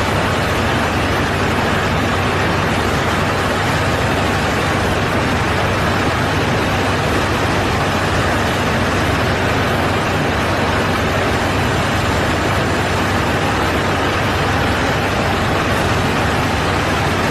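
Steady aircraft noise: an even rushing of airflow and engines with a constant low hum.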